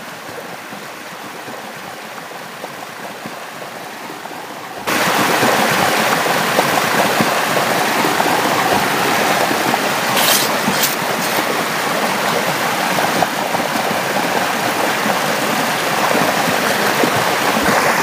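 Muddy stream water rushing over a small cascade, a steady, noisy rush of flowing water. It steps up suddenly to much louder about five seconds in, with a few brief high hissy spatters around the middle.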